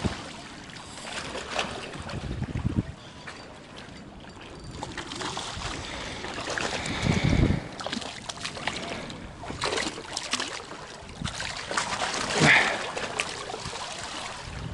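Wind gusting on an action-camera microphone, with irregular water splashes below, including a hooked fish splashing at the surface.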